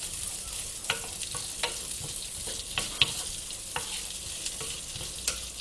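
Cut green asparagus sizzling steadily in butter in a frying pan over gentle heat while being stirred with a wooden spoon, with light irregular knocks and scrapes of the spoon against the pan about once a second.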